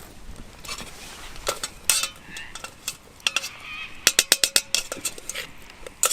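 Metal utensil clinking and knocking against metal camp cookware, with a quick run of about seven light ringing taps a little past the middle.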